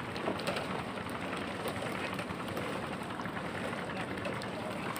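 Steady outdoor background noise over open water, with faint distant voices now and then.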